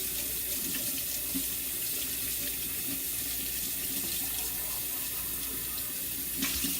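Kitchen faucet running into a sink during hand dish-washing, a steady hiss of water with a few faint clinks and knocks of dishes.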